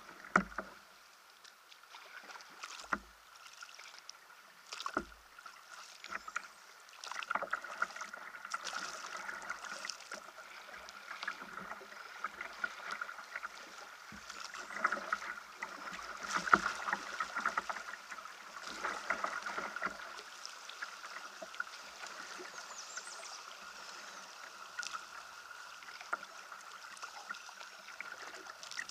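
Kayak running through a shallow riffle: water splashing and rushing along the hull, with a few separate knocks in the first few seconds. The water sound builds about seven seconds in, is busiest in the middle and eases near the end, over a faint steady high tone.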